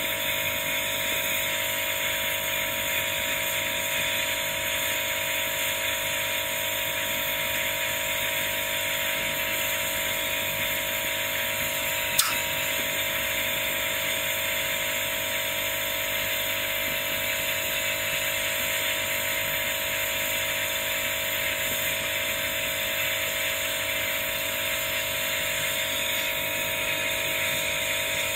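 Gas torch flame hissing steadily while it heats a copper cabochon for Keum Boo, with a single sharp click about twelve seconds in.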